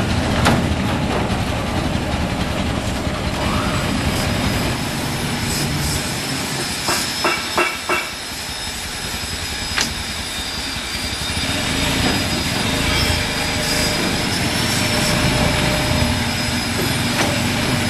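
A motor vehicle engine running, with a steady high whine over it; the engine eases off for a moment near the middle, where four short beeps come in quick succession.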